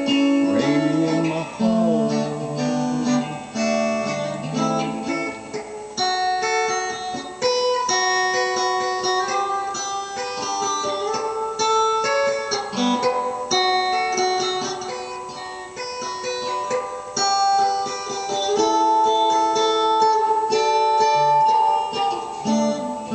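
Electric guitar playing a melody of single picked notes, an instrumental break with no singing.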